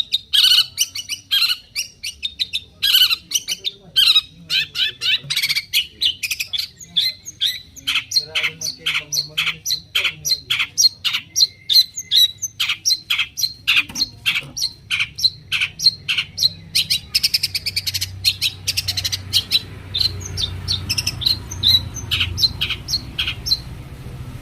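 Long-tailed shrike (cendet) calling: a long unbroken run of short, harsh notes, about two or three a second.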